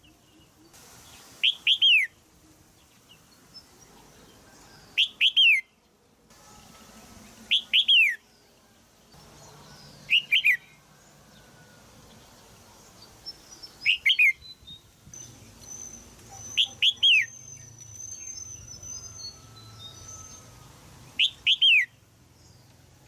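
Female red-whiskered bulbul giving harsh 'jiak' calls: clusters of two or three quick, falling chirps every few seconds, about seven clusters in all. A faint, higher twittering runs under the calls in the second half.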